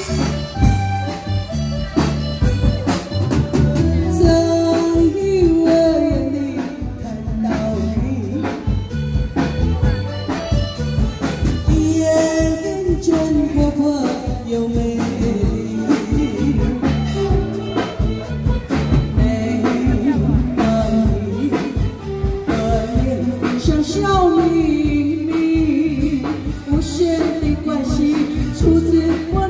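A Taiwanese opera (gezaixi) singer performing an aria through a microphone, the voice gliding and ornamenting the melody, over amplified musical accompaniment with a steady beat.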